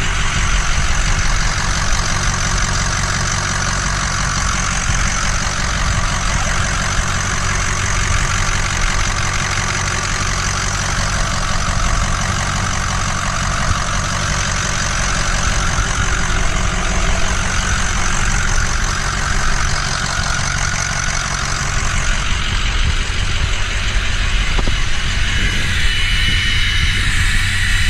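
Ford 6.0-litre Power Stroke V8 turbodiesel idling steadily during a coolant flush, with a constant hiss over the engine note.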